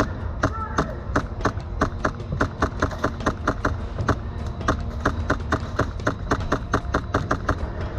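Quick, regular footfalls of a player running, about five a second with a brief break about four seconds in, over a low rumble of movement on the microphone.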